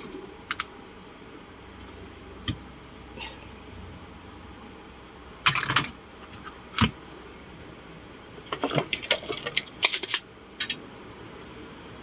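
Clicks, knocks and light clattering of small hard objects being handled, with a couple of single clicks early on and denser bursts of rattling about halfway through and again near the end.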